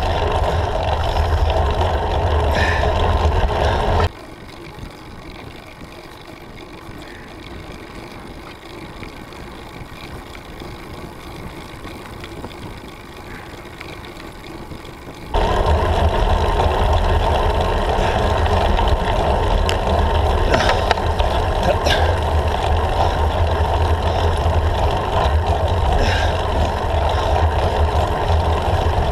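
Steady rumbling wind-and-vibration noise on a handlebar-mounted camera's microphone while a road bike climbs. It drops suddenly to a much quieter hiss about four seconds in and jumps back to the full rumble about fifteen seconds in.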